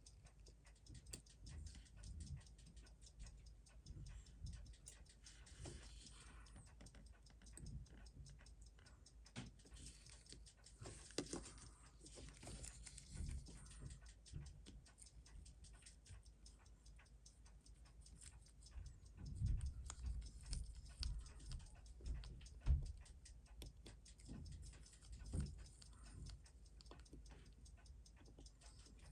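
Faint, fast, steady ticking, with scattered light clicks of small tools and parts on a bench and a few soft knocks about two-thirds of the way through.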